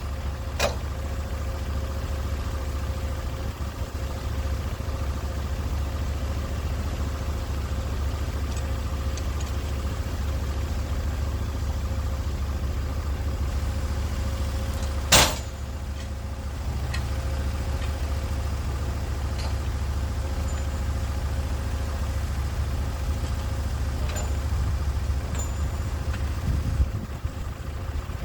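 Sawmill engine running steadily with a low, even hum. A single sharp knock about halfway through.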